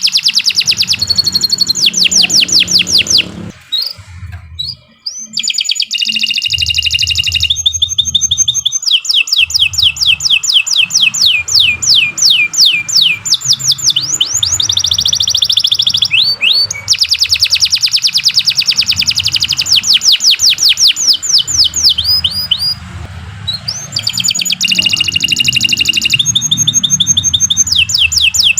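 Domestic canary singing a long, loud song of fast trills and rapidly repeated rolling notes, with a brief break about three to five seconds in. A low hum runs underneath.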